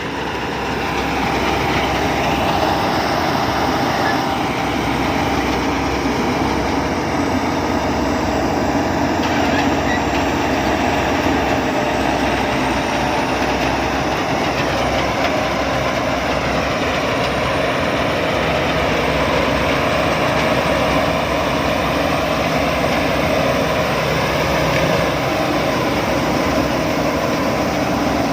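Rice combine harvester running steadily under load as it harvests lodged, fallen-over rice: a continuous engine and machinery drone that swells over the first second or two, then holds level.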